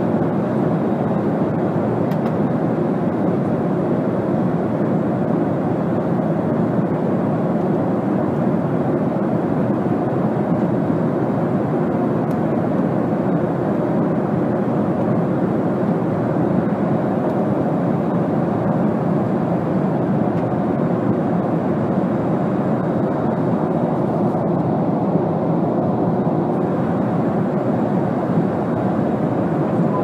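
Jet airliner cabin noise in flight: a steady rush of jet engines and airflow over the fuselage, even and unchanging, heaviest in the low and middle range.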